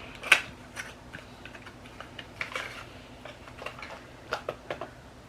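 Light, irregular clicks and taps of plastic makeup packaging being handled, with one sharper click about a third of a second in.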